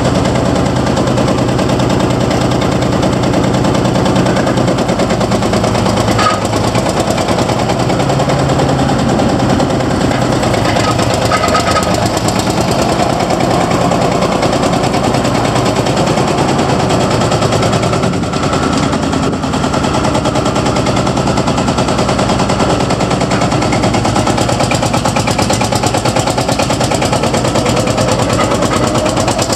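Field Marshall tractor's single-cylinder two-stroke diesel engine running while the tractor is driven, with a fast, even, hard exhaust beat.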